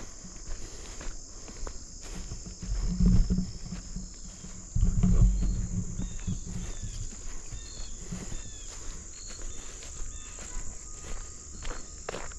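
Footsteps of someone walking on a marsh hike under a steady high-pitched chorus of crickets and other insects. Two low rumbles about three and five seconds in are the loudest sounds, and a run of short falling chirps follows a few seconds later.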